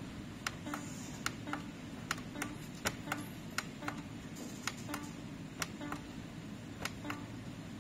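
Plastic push buttons on an LED azan wall clock's control panel clicking as they are pressed about eight times, each press a quick double click, stepping through the clock's setting menus.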